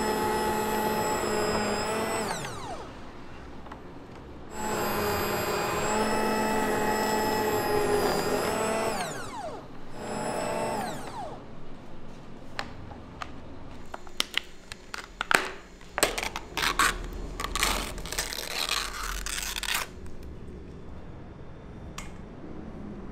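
A small electric kitchen motor runs in three bursts, about two, four and one second long, its pitch dropping each time it is switched off and spins down. Then come sharp clicks and knocks, with a few seconds of rough scraping noise before it goes quieter.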